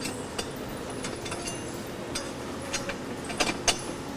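Metal parts of a gyroplane rotor head clicking and clinking as they are handled and fitted onto the roll-and-pitch block. The clicks are short and scattered, with the two loudest a little after three seconds in.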